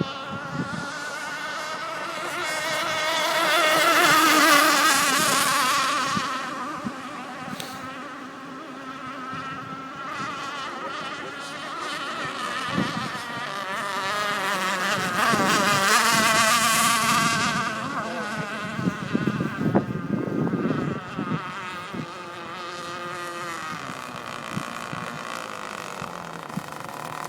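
RC hydroplane racing boat running laps with a high-pitched buzzing whine. It grows loud as the boat passes, about four seconds in and again around sixteen seconds, then fades as it runs away.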